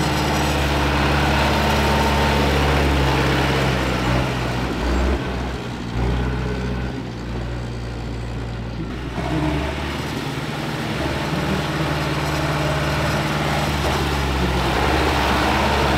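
Farm tractor's diesel engine running under load as it drives through deep mud, dropping back somewhat in the middle and growing louder again near the end.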